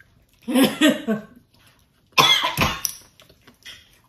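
A woman coughing in two fits, the first about half a second in and a louder one about two seconds in: she has choked on persimmon juice.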